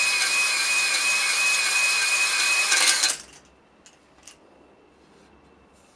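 A drill spins a three-arm stone cylinder hone inside a BMW M54 engine block's cylinder bore with a steady whine, then cuts off about three seconds in, followed by a few faint clicks. This is a light hone to roughen the cylinder wall so the new piston rings seat and seal.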